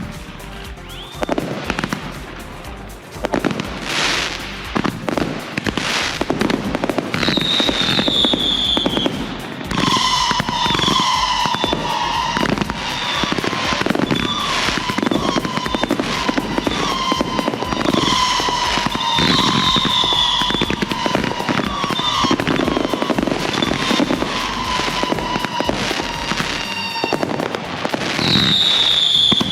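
Consumer fireworks going off in rapid succession: cake shots and aerial bursts firing continuously, with louder volleys near the end.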